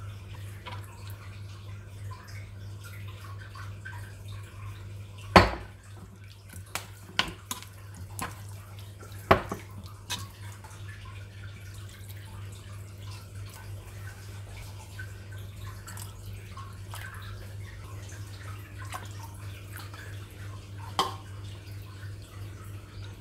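Liquid bubbling and dripping in a cooking pot, with a few sharp knocks of a utensil against cookware, the loudest about five seconds in, over a steady low hum.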